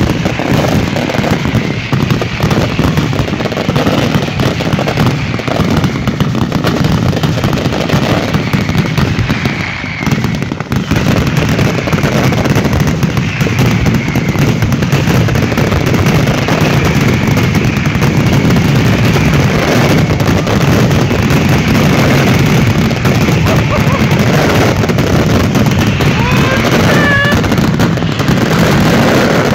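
Dense, nonstop barrage of fireworks, with firecrackers crackling and banging one over another, easing briefly about ten seconds in.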